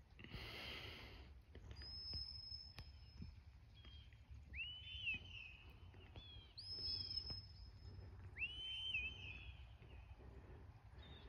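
Distant shepherd's whistle commands to a working border collie: a string of long, held whistle notes, each starting with a quick upward slide, alternating between a higher and a lower pitch. A short rustle comes right at the start.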